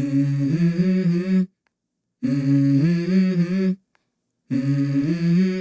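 Wordless hummed vocal phrases from a music track: three short phrases of held, stepping notes, each about a second and a half long, with brief silences between them.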